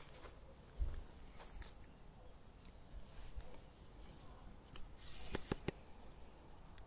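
Camera handling: a low thump about a second in, then a rustle with a few sharp clicks near the end. Faint, short high chirps repeat in the background.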